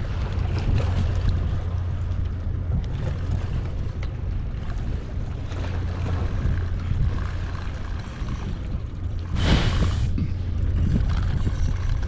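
Wind on the microphone over a steady low rumble, with a brief louder gust about two-thirds of the way through.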